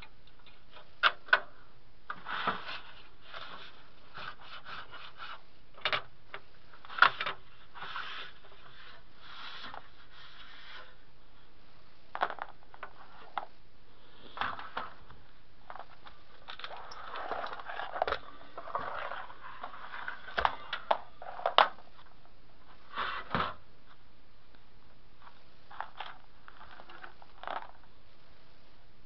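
Hard plastic parts of a Sony television's casing being handled and pried apart: scattered sharp clicks and knocks with short stretches of plastic scraping and rubbing, busiest about two-thirds of the way through.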